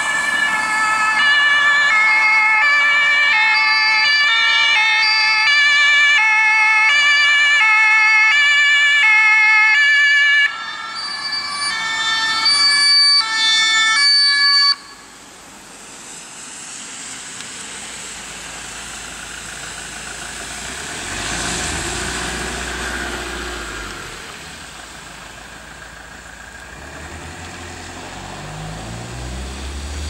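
German fire engine's two-tone siren (Martinshorn) alternating between two pitches, cutting off abruptly about fifteen seconds in. After that a vehicle drives past on a wet road, with engine and tyre noise swelling and fading.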